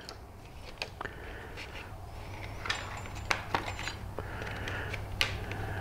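Scattered light clicks and rustles of insulated wires being pressed into a plastic wiring channel, over a low steady hum.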